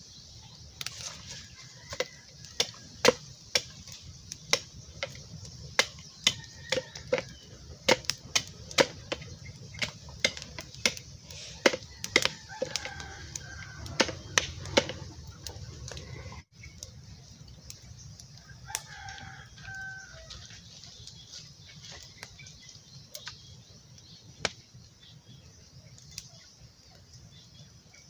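A blade striking and chopping at a green bamboo tube in sharp, irregular knocks, about one or two a second at first and sparser later.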